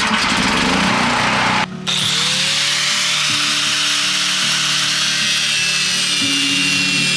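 Angle grinder cutting steel angle iron, a loud steady hiss of the disc through the metal. It drops out for a moment about two seconds in, then its whine climbs and holds steady as it cuts again.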